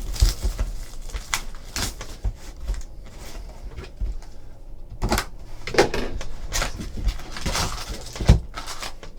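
A hockey card pack being opened and handled: scattered short rustles of the wrapper and light knocks and clicks, heavier around the middle and near the end.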